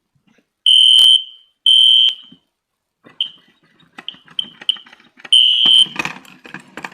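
Fire alarm horn sounding in short, high-pitched electronic blasts of about half a second: two blasts a second apart, a few brief faint chirps, then another blast near the end. The alarm was set off from a pull station. A sharp click sounds during the first blast.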